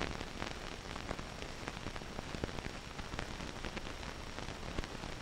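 Surface noise of an old optical film soundtrack: a steady hiss sprinkled with faint crackles and pops, with no voice or music.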